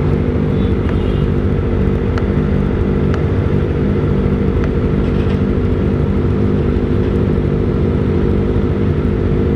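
Kawasaki ZX25R's inline-four engine running steadily on the move, breathing through an aftermarket Austin Racing silencer.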